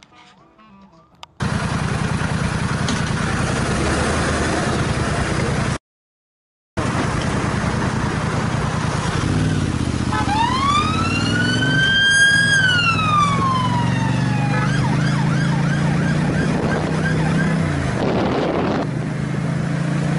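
Road, wind and engine noise from a moving vehicle's camera, broken by a second-long dropout about six seconds in. After it comes a motorcycle's engine with its pitch rising and falling, and about ten seconds in a siren gives one slow wail that rises and then falls over some four seconds.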